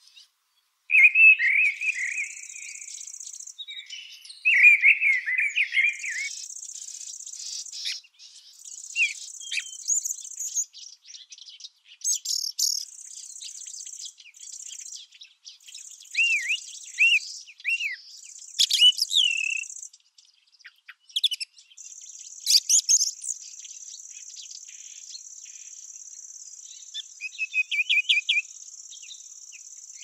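Small birds chirping and singing in short phrases, over an insect's high, buzzing trill that comes in stretches of a second or two and then runs on without a break over the last third.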